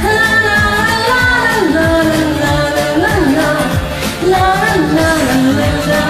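A woman singing long held, gliding notes over a karaoke-style pop backing track with bass and a steady beat.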